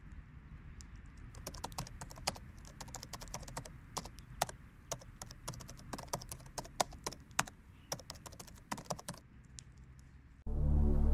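Computer keyboard typing sound effect: irregular clicking keystrokes for several seconds as text is typed out. Ambient music starts suddenly near the end.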